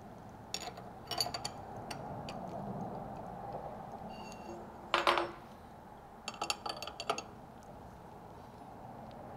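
Profile router bit being fitted into a machine spindle's collet and the collet nut tightened with a wrench: a series of sharp metal clicks and clinks, the loudest about five seconds in and a quick cluster a second or so later, over a faint steady hum.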